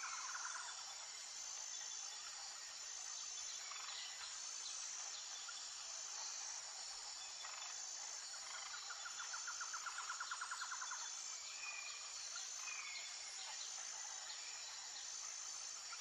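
Faint nature ambience: a steady high insect drone with a few scattered bird chirps, and a rapid trill lasting a couple of seconds about halfway through.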